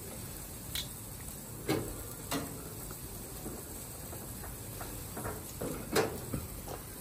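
Fish grilling over a fire: a low steady background broken by several sharp pops and clicks, the loudest about six seconds in.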